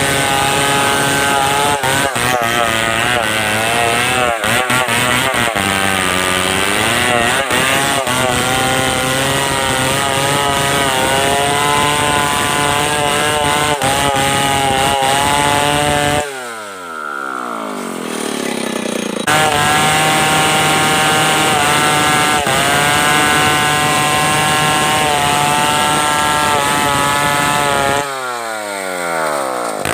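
Stihl 070 two-stroke chainsaw running at full throttle, cutting timber, its pitch sagging and wavering under load. Twice, about 16 seconds in and again near the end, the throttle is let off and the revs fall away steeply. After the first drop it opens up to full speed again.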